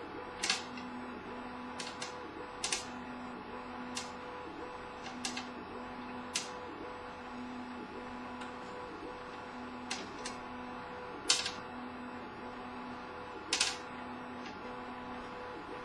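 CTC 3D printer running: its stepper motors hum in short steady tones that shift pitch every half second or so, broken by sharp, irregular knocks a second or few apart. The knocks come from the top right corner of the printer and are a fault that the owner has not traced.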